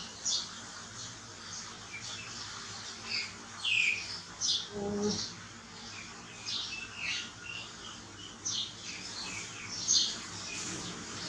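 Infant monkey giving short, high-pitched squeaks and chirps, about a dozen scattered irregularly, several sliding downward in pitch.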